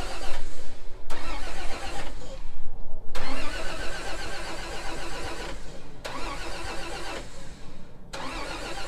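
Starter motor cranking the 1949 White WB-20 tow truck's engine in several runs of one to two seconds with short pauses between them, without the engine catching. The owners put the no-start down to an ignition voltage problem.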